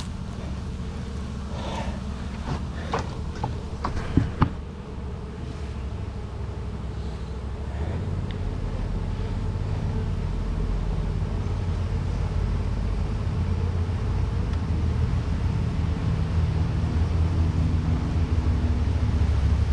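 Honeybee colony humming in an open hive, a steady low drone that grows louder from about eight seconds in. A few sharp knocks and clicks in the first five seconds, the loudest about four seconds in.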